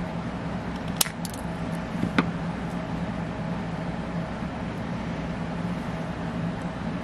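Steady mechanical hum, with two sharp metallic clicks about a second apart early on.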